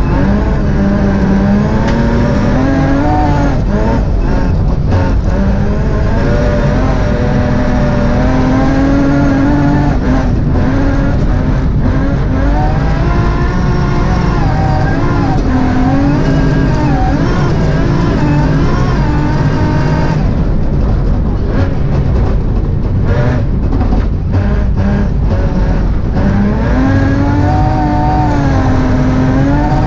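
BMW M3 rally car's engine heard from inside the cabin, driven hard, the revs climbing and dropping again and again with gear changes and lifts, over a steady rumble of tyres on the snowy gravel road.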